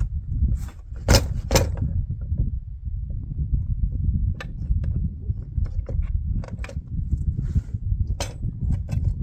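Metal hitch parts clinking and clattering while a frost-stuck plastic sled is worked and hitched by hand, with a few sharp knocks about a second in and again near the end. A steady low rumble runs underneath.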